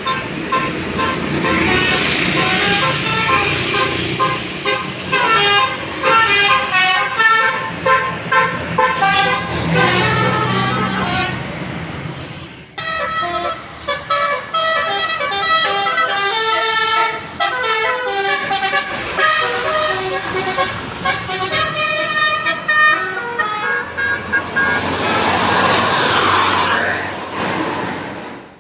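Indonesian bus 'telolet' multi-tone musical horn playing quick runs of short melodic toots over vehicle engine noise, with an abrupt break about halfway through and a vehicle passing close near the end.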